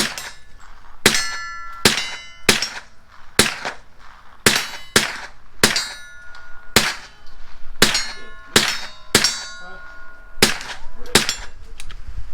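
A rapid string of gunshots, about one to two a second and irregular, with steel targets ringing with a metallic ping after several of the hits.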